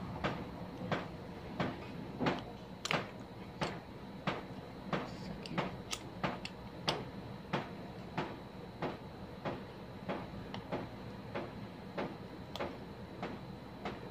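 A steady series of sharp clicks, about three every two seconds, evenly spaced, over a faint steady high whine.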